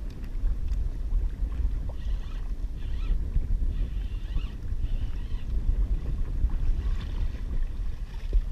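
Steady low rumble of wind buffeting the microphone, with water washing around a kayak on open sea.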